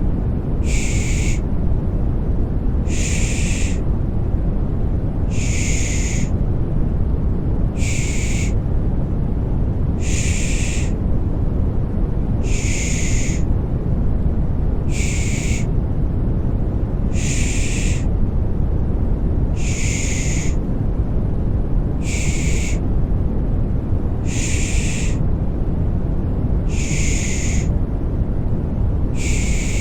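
Rhythmic 'pış pış' shushing for a baby: a short 'shh' hiss repeating evenly about every two seconds, over a steady low, rumbling white noise.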